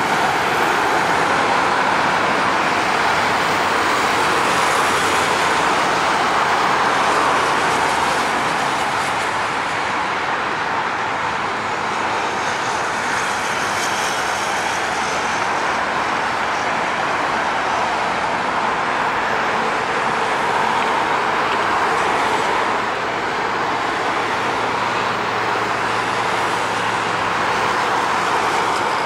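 Boeing 747's four jet engines heard as a steady, even rush of jet noise as the freighter comes in on final approach and lands.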